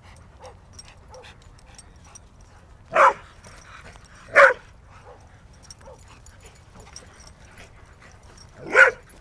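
Dog barking three times in short single barks during rough play, the second about a second and a half after the first and the third some four seconds later.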